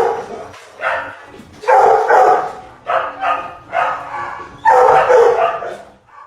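A dog giving a run of about six loud, drawn-out barks.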